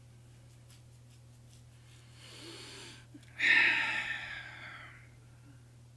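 A man's breath, not speech: a soft in-breath about two seconds in, then a louder, longer out-breath like a sigh that fades away over about two seconds.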